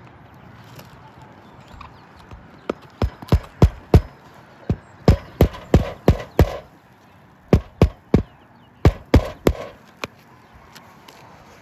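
Hammer knocking, in runs of three to seven blows about three a second with short pauses between runs, typical of nails being driven while a shingle is fixed back in place.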